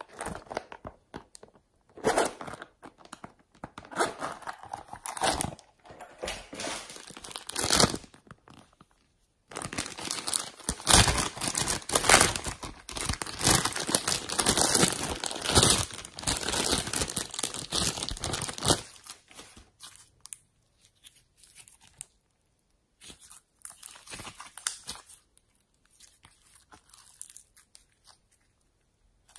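Slime being squeezed and pulled by hand, in irregular bursts of noise that are busiest in the middle and sparser near the end.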